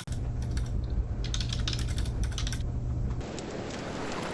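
A mixed white-noise sleep sound: keyboard typing clicks layered over the steady low hum of a clothes dryer. A little past three seconds in, the mix changes to an even, rain-like hiss.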